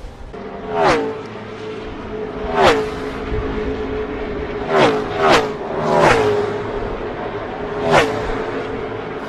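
NASCAR V8 stock cars at full speed passing one after another, about six times, each engine note peaking and dropping in pitch as it goes by, with a steady engine drone between the passes.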